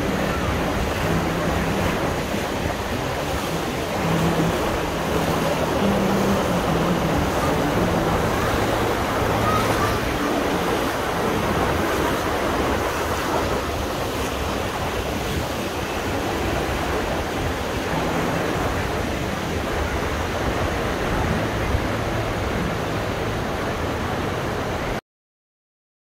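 Shallow river water rushing steadily over rock rapids, a constant churning hiss that cuts off suddenly near the end.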